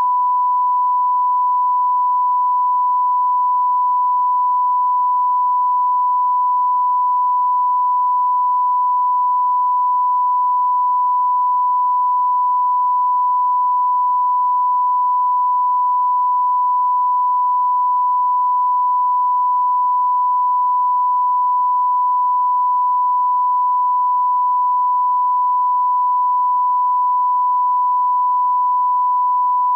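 1 kHz line-up test tone played with SMPTE colour bars, the reference for setting audio levels: one steady pure tone held without a break.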